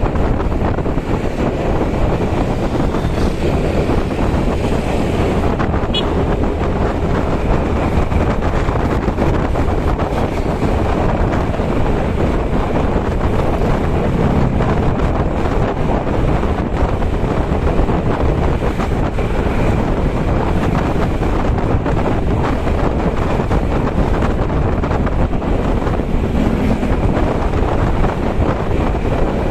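Loud, steady wind buffeting the microphone of a camera moving along a road, with the rumble of the vehicle and road noise underneath.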